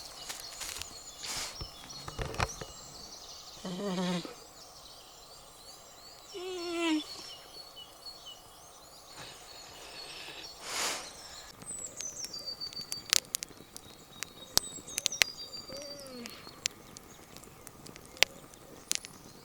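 Woodland birds singing, with high whistled phrases that slide down in pitch, over a scatter of sharp crackles from a wood campfire. Two louder calls fall steeply in pitch about four and six and a half seconds in.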